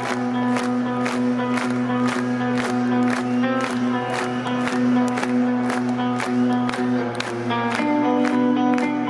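Live rock band playing a slow song intro through a stadium PA, recorded from within the crowd: sustained chords over a steady beat of about two hits a second, with the chord changing near the end. Crowd noise and applause sit underneath.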